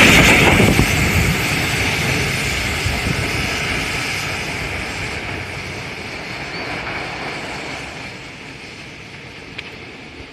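Freight train running past and fading steadily as it recedes, the rumble and wheel noise dying away.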